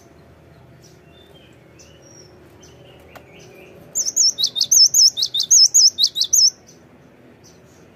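Cinereous tit singing: after a few faint short calls, about halfway in it bursts into a loud, rapid run of repeated ringing whistled notes, five or six a second, for about two and a half seconds. This is the bird's full 'gacor' song.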